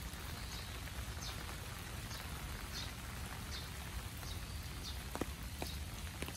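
Steady rain falling on the grass and trees, with a small bird repeating a short, high, falling call about once every three-quarters of a second. A few footsteps on wet ground near the end.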